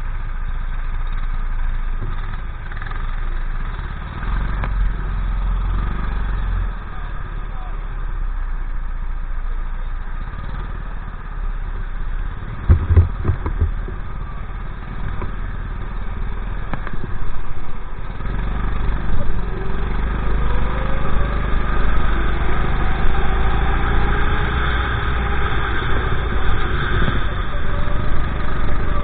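Honda GX390 single-cylinder four-stroke kart engine idling, with other karts running close by, and a few sharp knocks about thirteen seconds in. From about eighteen seconds in the engine gets louder and its note rises as the kart pulls away and accelerates.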